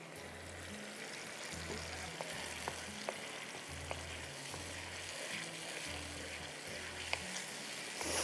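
Tomato-and-spice masala sizzling in hot oil in a wok while it is stirred with a wooden spoon, with a few light clicks of the spoon against the pan.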